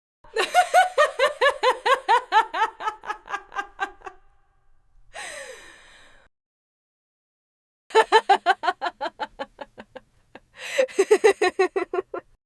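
A woman laughing in three bouts of rapid, pulsed ha-ha-ha, the first fading away over about four seconds. A breathy in-breath comes between the first and second bouts.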